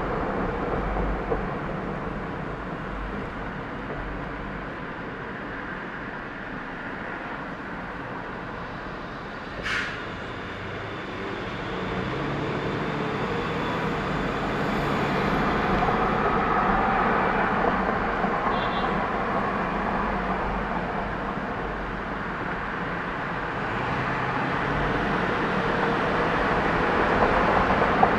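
Steady rush of road and traffic noise from a car driving through city streets, swelling and easing in level, with one sharp click about ten seconds in.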